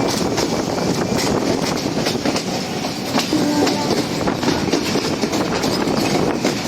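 Moving train running steadily, its wheels clattering over the rail joints with continuous rumble and rattle.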